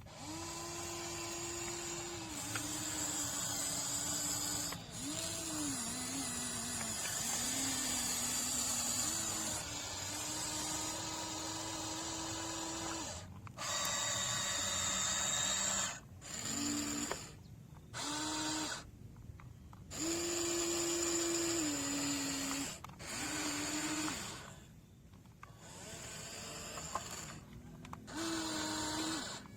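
Electric motors of radio-controlled construction models whining in repeated runs of one to a few seconds, starting and stopping with short pauses, the pitch stepping up and down as the load changes.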